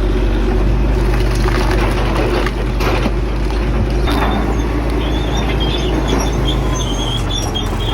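Large bulldozer's diesel engine running hard with a steady deep drone as it pushes into a stump. There are a few knocks about three seconds in and an intermittent high squeak in the second half.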